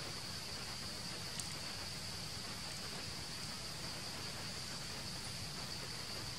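A steady, high-pitched insect drone over a constant background hiss, with one brief tick about a second and a half in.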